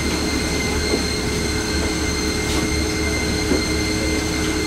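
Steady cabin noise inside a Boeing 747-400 airliner: a constant low rumble with several steady whining tones from the aircraft's engines and air systems.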